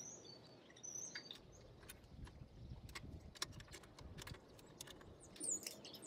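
Quiet outdoor ambience: short high bird chirps now and then, a low rumble of distant traffic through the middle, and scattered light clicks.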